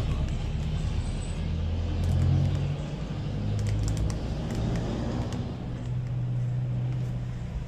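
A motor vehicle engine running nearby gives a low, steady hum that shifts in pitch. Over it come a few faint crinkles and clicks from a foil packet of vape cotton being torn open and handled.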